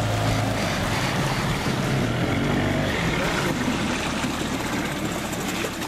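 An engine running steadily, its low hum fading about a second in under a steady rushing noise.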